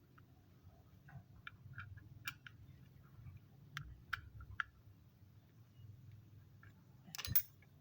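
Scattered light clicks and ticks from a hand tool working the three screws of a Vespa clutch while they are checked for tightness, with a louder clatter near the end.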